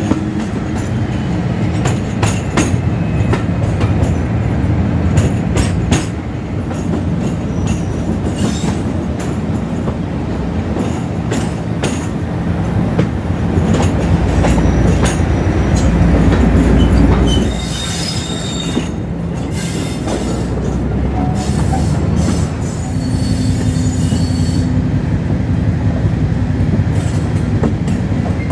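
Class 56 diesel locomotive's Ruston Paxman V16 engine running with a deep, throbbing drone, over many sharp clicks and knocks from the track. The engine is loudest a little past halfway and then drops off abruptly, and a thin high-pitched squeal of wheels comes in soon after.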